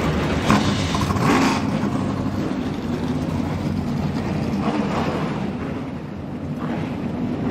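Race truck V8 engines running steadily, with a few brief louder surges about half a second and a second and a half in.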